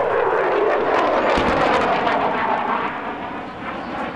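JASDF F-15J fighter's twin turbofan engines in a low, close display pass: loud jet noise with its pitch shifting as the aircraft passes and banks, easing off about three seconds in.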